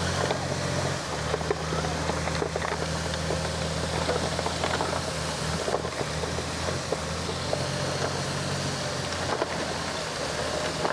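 Komatsu D20P bulldozer's diesel engine running steadily under work, with scattered clanks and knocks from the machine and soil throughout.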